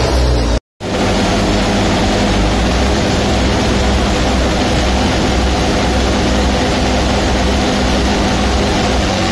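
Diesel tractor engines run flat out under heavy load as two tractors chained back to back pull against each other in a tug-of-war: a loud, steady engine noise. The sound drops out completely for a moment under a second in, at an edit cut.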